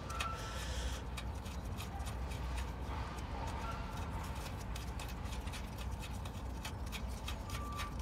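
Faint, irregular clicking of a wrench working loose the 10 mm nut that holds a transmission shifter cable, over a low steady rumble.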